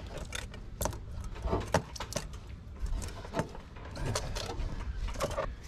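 Hands handling an air filter and rubber intake hose: scattered light clicks and knocks as the parts are pushed and fitted together.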